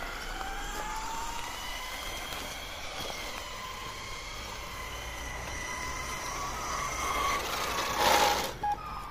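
Electric motor and gear whine of a 1:10-scale Artin Nissan 350Z radio-controlled drift car driving: a steady high whine that climbs slightly in pitch in the first second or so. About eight seconds in there is a brief, louder rush of noise.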